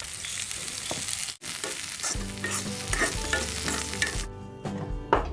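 Whole spices and chopped green chillies sizzling in hot oil in a kadhai as fresh green coriander is thrown in, with a spoon scraping and stirring against the pan: the tempering (tadka) for raita. Background music with low notes comes in about two seconds in, and the sizzle drops away near the end.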